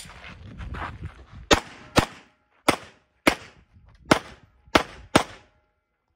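A string of handgun shots during a practical-shooting stage: seven sharp shots fired in quick succession, roughly half a second apart, beginning about a second and a half in, with another shot right at the end.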